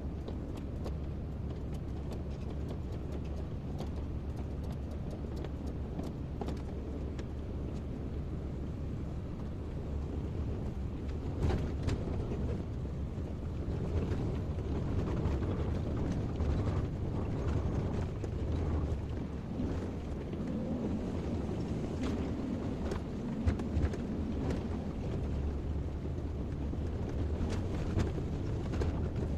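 Kobelco excavator's diesel engine running with a steady low drone. From about ten seconds in the working noise grows louder and busier, with scattered sharp knocks.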